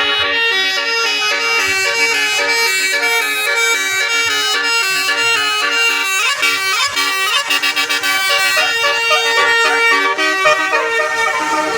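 Bus telolet horn, a Basuri multi-tone air horn, playing a fast tune of stepped horn notes, several tones at once.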